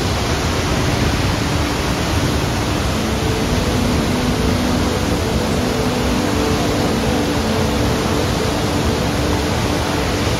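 Large waterfall: a dense, steady rush of whitewater pouring over a rock ledge into the pool below.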